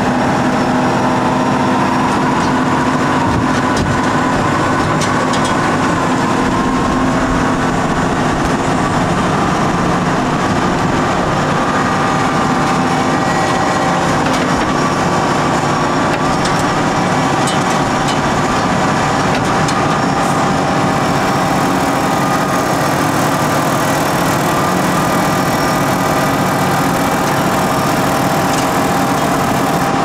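Volvo L150H wheel loader's diesel engine running steadily as the machine moves sand, its pitch shifting slightly.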